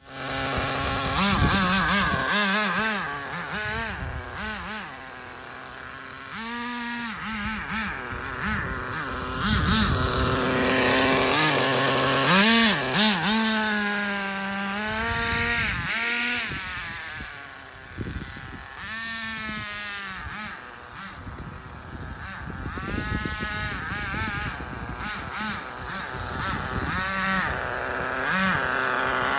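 The two-stroke glow-fuel nitro engine of a 1/10-scale ACME Conquistador RC truck running hard. Its pitch rises and falls again and again as the throttle is opened and backed off.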